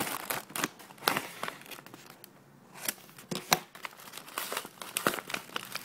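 Plastic packaging crinkling and crackling as a package is handled and torn open, in irregular bursts with a short quieter pause about two seconds in.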